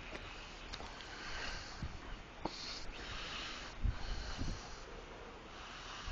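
A person breathing hard, with snort-like breaths, while trudging through deep snow, plus a few dull thumps of footsteps or of the camera being handled.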